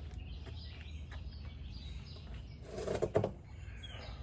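Small birds chirping on and off over a low steady hum, with a brief louder clatter about three seconds in.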